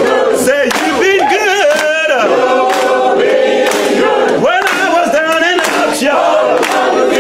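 Choir of men and women singing together, with hand claps on the beat.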